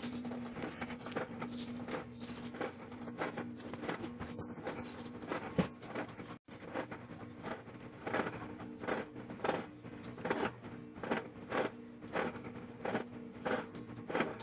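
Microwave oven running with a steady hum, over a string of clicks and crackles from the Hallmark Cupig being microwaved. The clicks come about twice a second in the second half, and the sound drops out briefly about six seconds in.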